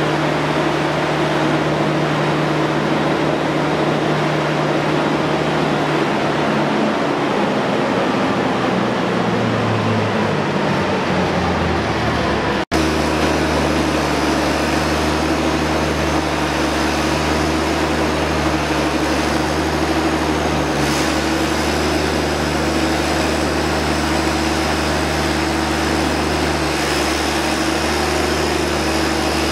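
Lovol 1006TANG six-cylinder gas engine of an 80 kVA biogas generator set running steadily. For a few seconds before the middle its note wavers and drops, then the sound breaks off for an instant and the engine runs on steadily.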